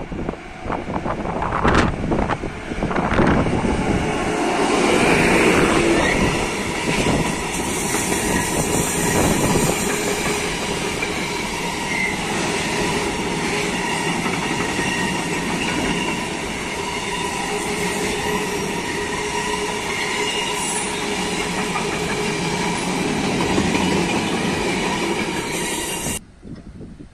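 Freight train of pressurised gas tank wagons rolling past close by: a steady rumble and clatter of wheels on the rails with a thin wheel squeal. It cuts off suddenly near the end.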